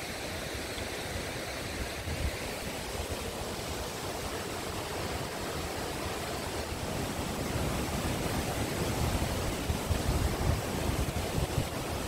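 Steady rushing of the Ézaro waterfall pouring into its pool. In the second half, gusts of wind buffet the microphone.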